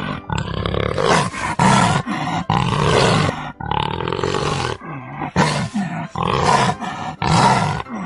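Leopard calling: a series of loud, rough calls, about one a second.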